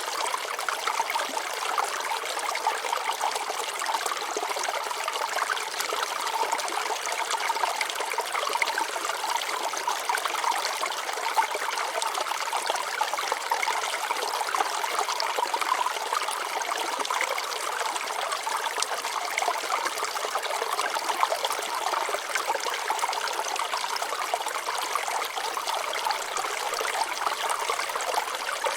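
Water flowing over rocks: a steady trickling and splashing with no deep rumble.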